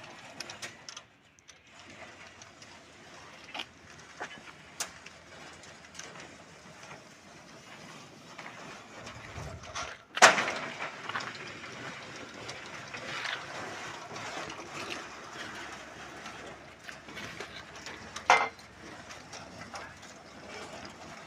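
Gear-operated rolling shutter being worked, its mechanism clicking and rattling. There is a loud sharp bang about ten seconds in, followed by a few seconds of busier rattling, and another bang around eighteen seconds in.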